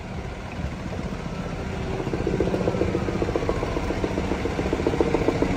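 A motor vehicle's engine running close by: a steady low rumble that grows louder, taking on a rapid pulsing hum from about two seconds in.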